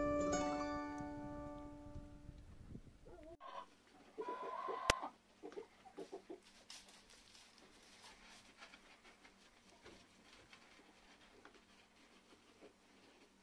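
Plucked acoustic guitar music dies away and stops. A few seconds in, a hen clucks briefly, with a sharp click just after, and faint rustling follows.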